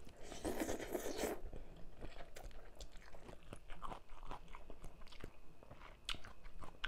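A person slurping in a mouthful of rice noodles for about a second, then chewing tam sua (spicy papaya salad with noodles) with many small wet clicks and crunches, close-miked.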